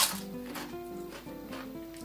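Soft background music with a simple stepped melody, opening with a single sharp crunch as a Pringles crisp is bitten.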